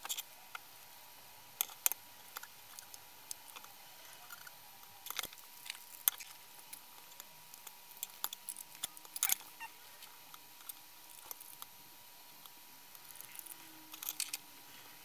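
Scattered sharp plastic clicks and taps from the plastic housing of a clamp-on current probe being handled and turned over while its battery pack is taken out.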